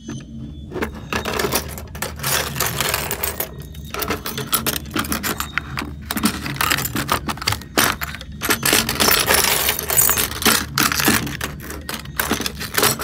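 Shards of a broken mirror clinking, scraping and rattling against each other and the wooden frame as they are knocked about: a dense, irregular clatter that starts about a second in.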